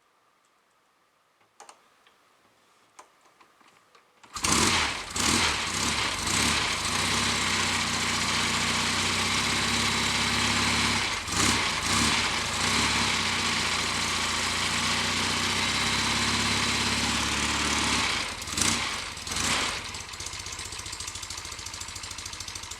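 Norton Commando 850's air-cooled parallel-twin engine catching about four seconds in on a cold first start. It then runs with several brief blips of the throttle and settles to a lower, steadier idle near the end.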